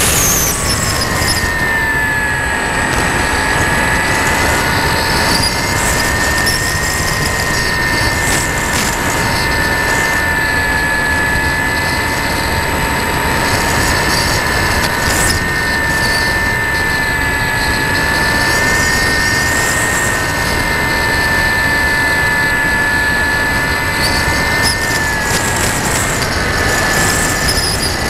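RC model aircraft's motor and propeller whining steadily in flight, heard from the onboard camera with a constant rush of wind over it. The pitch dips slightly at the start and rises a little near the end.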